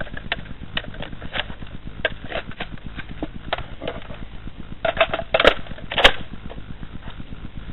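Irregular sharp clicks and rustles close to the microphone over a steady low rumble, with a cluster of louder knocks about five to six seconds in.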